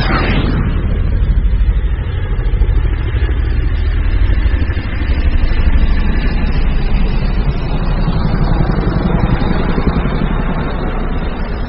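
An engine running steadily, a low rumble with a fast, even pulse.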